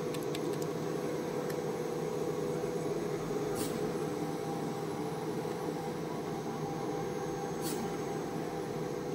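Steady machine hum with a constant tone, from the CNC machine, and a few faint clicks as the controller's function keys are pressed, two of them about four seconds apart.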